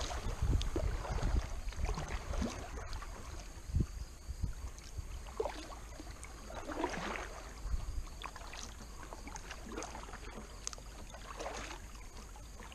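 Kayak paddle strokes dipping and splashing in calm water, a stroke every second or two, over a steady low rumble.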